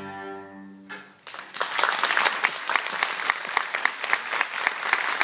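A string ensemble's final held chord fades out in about the first second. Then, after a brief pause, an audience starts applauding with dense, steady clapping that lasts to the end.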